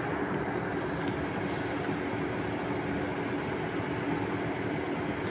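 Food-processing factory machinery running steadily: a constant hum under an even mechanical noise.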